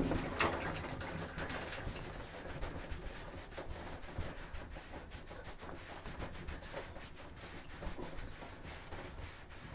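Faint rubbing and shuffling of a person moving about in a shower stall, with scattered light knocks.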